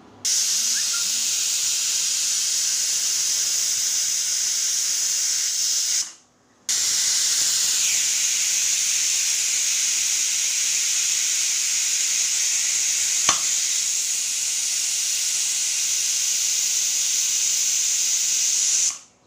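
Stovetop pressure cooker whistling: steam jetting out under the weight valve as a loud, steady hiss in two releases, the first about six seconds long and the second about twelve, each starting and stopping abruptly. The whistles are the sign of full pressure inside, counted to time the cooking of the rice.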